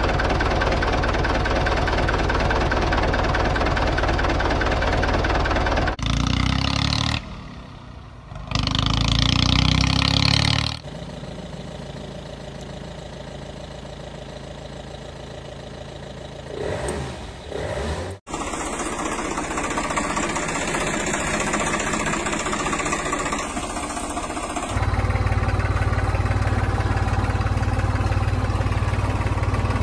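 Tractor engine sound laid over the pictures: an engine running, idling and revving in a series of spliced clips that change abruptly several times, quieter for a stretch in the middle.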